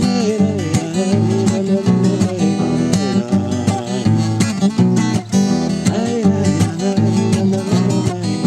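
Acoustic guitar strummed in a steady rhythm during an instrumental break between verses of a bard song, with a gliding melody line sounding above the chords twice.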